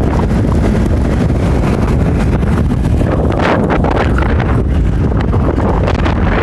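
Wind rushing and buffeting against the microphone in an open-top jeep on the move, a loud steady roar with the vehicle's road noise underneath.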